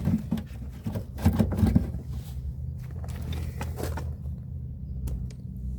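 Scattered clicks and knocks of a car's fuel filler neck and its rubber seal being worked loose, over a steady low hum.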